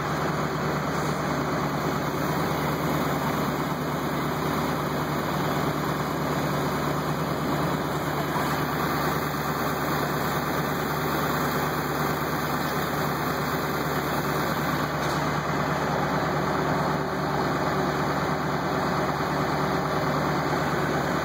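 Fire engine's engine idling steadily with a low, even hum.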